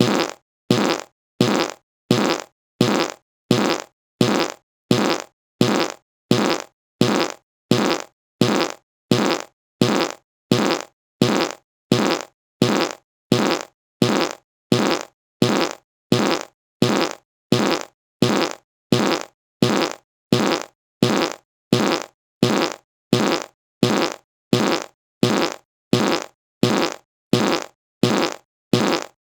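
The same short fart sound repeated in a loop, about three every two seconds. Each one starts sharply and fades out.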